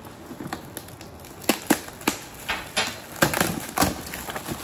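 Gift packaging being handled and torn open: irregular crackling and a run of sharp snaps, starting about a second and a half in.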